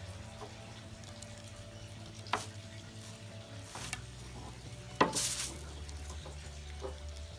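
Wet scraping and squelching as a deboning tool is worked into a Spanish mackerel along its backbone, with a few short scrapes and knocks, the loudest about five seconds in, over a steady low hum.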